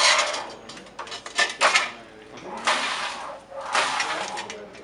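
Flat knitting machine's carriage being run back and forth across the needle bed: a series of rasping swishes about a second apart.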